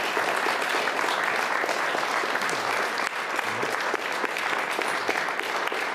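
An audience applauding: many people clapping at once.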